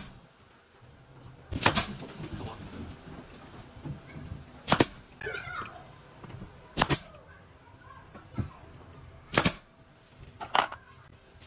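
Pneumatic nail gun firing nails into a solid-wood wardrobe panel: five sharp shots at uneven intervals, each a crack with a short hiss of air.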